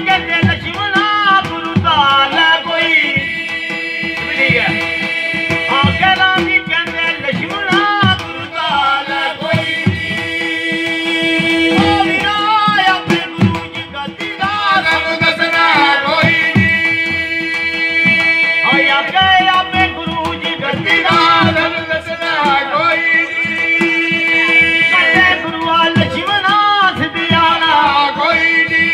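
Devotional folk music: hand drums keep a quick, dense beat under a sustained melody over a steady held drone note.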